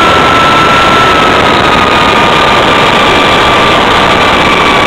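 Loud, steady hiss from a model plane's analog FPV audio feed, with a faint whistle sliding slowly down in pitch, as the plane glides in with its motor off.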